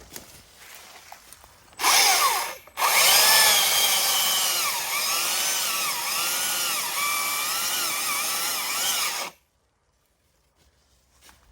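Stihl MSA 300 battery chainsaw: a short blip of the electric motor spinning up about two seconds in, then after a brief pause it runs flat out for about six seconds, its whine dipping and recovering again and again as the chain bites into the wood while bucking a log. The motor stops abruptly near the end.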